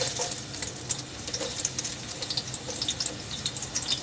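Sliced onions sizzling and crackling in hot oil, having just been tipped into a large pot for frying.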